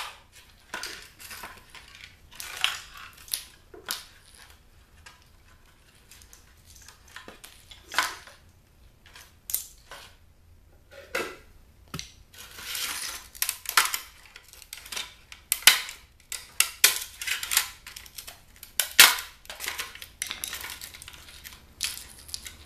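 Irregular clatter of plastic and metal parts of a 12-volt travel cooler being handled and pried apart: sharp clicks and knocks with short scrapes in between, the loudest knocks about eight seconds in and near the end.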